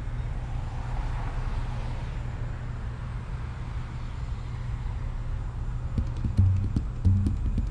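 Steady low rumble of passing road traffic, a car going by in the first couple of seconds. About six seconds in, drum-like thumps and sharp clicks begin.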